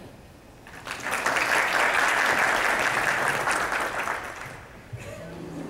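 Audience applauding, starting about a second in and dying away after about four seconds.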